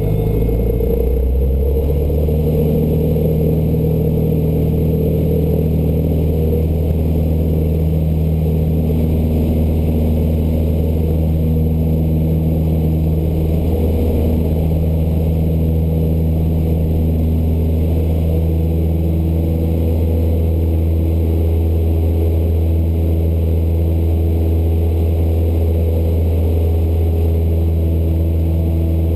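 Cessna 152's four-cylinder Lycoming O-235 engine and propeller, heard inside the cabin, coming up to full power in the first couple of seconds, then running steadily at takeoff power through the takeoff roll and climb-out.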